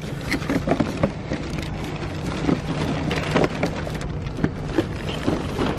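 Plastic shopping bags crinkling and rustling as new sneakers and their shoe boxes are handled, a run of irregular crackles over a steady low hum.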